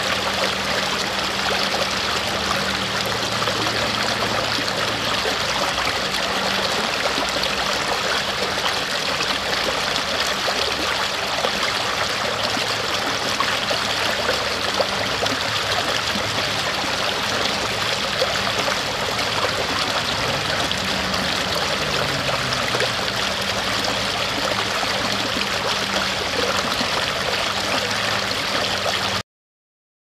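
Shallow stream running over rocks, a steady rush and gurgle of water that cuts off suddenly near the end.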